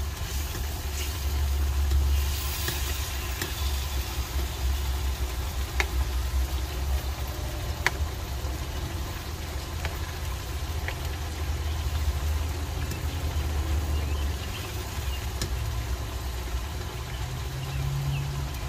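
A steady low rumble under a simmering pan of sauce, with a few light clinks of a metal ladle against the wok as sauce is spooned over a whole fish. The rumble eases off about two-thirds of the way through.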